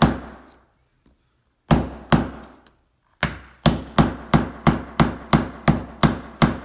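Hammer striking a screwdriver used as a chisel on a geode's stone shell, sharp metallic taps with a faint high ring. A single blow, then two, then a steady run of about ten blows at roughly three a second.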